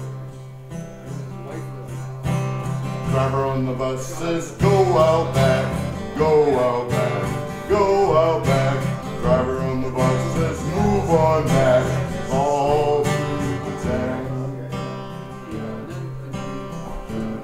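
Band music with guitar over a steady low bass line. From about three seconds in to about fourteen seconds, a louder lead melody with bending, wavering notes rides on top, then it eases back to the band.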